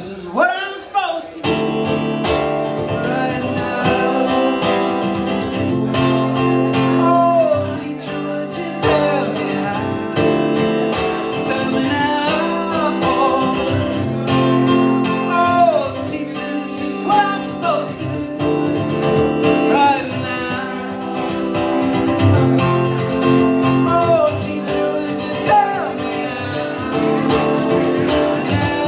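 Live band music: strummed acoustic guitar chords with a melody line gliding over them.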